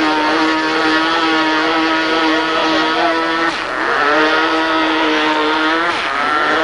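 OS .45 glow engine of a radio-controlled model seaplane running at full revs as a steady high-pitched whine. It dips briefly about three and a half seconds in and wavers in pitch around six seconds in, as the model skims across the water.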